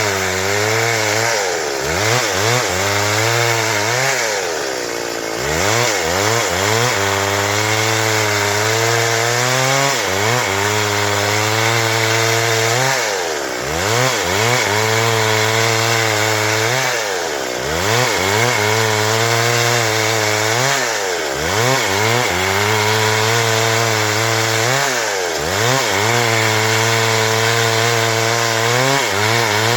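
Stihl MS 382 two-stroke chainsaw running hard and cutting wood, loud and continuous. Its engine pitch dips and climbs back up every few seconds.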